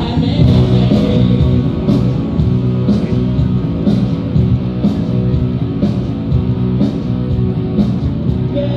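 Rock music with guitar and a steady drum beat hitting about once a second.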